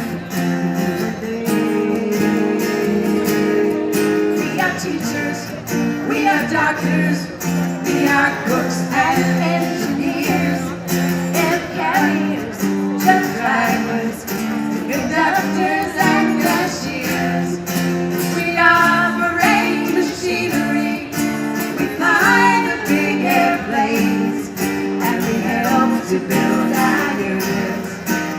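A song with strummed acoustic guitar and a female singing voice.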